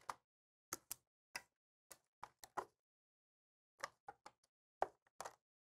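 Plastic wiring-harness connector and wires being handled and unplugged inside an RV air conditioner: about fifteen short, sharp clicks and taps in loose clusters, with silence between them.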